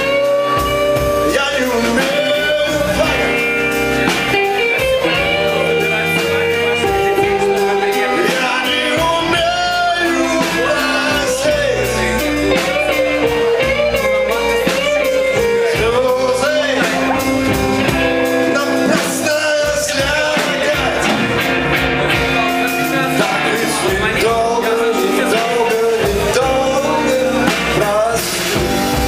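A blues-rock band playing live, with electric guitars to the fore.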